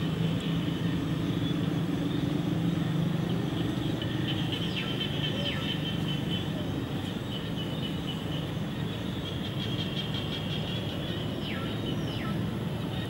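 Steady outdoor background: a low hum with a high steady drone over it, and a few brief falling chirps about five seconds in and again near the end.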